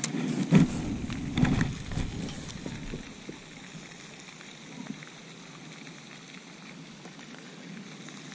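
A few short knocks and handling noises in the first two seconds, then a faint steady outdoor hiss.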